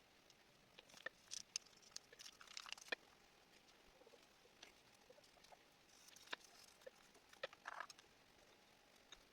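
Faint, irregular light clicks and taps, with short rustling scrapes in two clusters, one about a second to three seconds in and one around six to eight seconds in.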